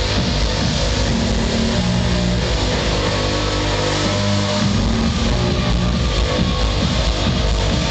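Loud electronic dance music (trance) from a DJ set over an arena sound system, recorded from the audience, with a held bass line stepping from note to note every second or so under a dense wash of sound.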